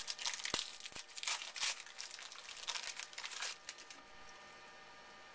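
Baseball card pack wrapper crinkling and rustling in quick crackly runs as it is handled, with a couple of sharp clicks about half a second and a second in. The crinkling dies away after about three and a half seconds.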